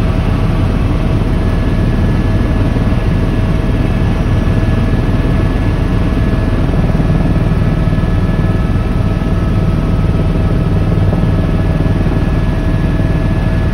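Helicopter in steady flight heard from inside the cabin: a loud, even engine and rotor drone, with a few thin steady whining tones above it.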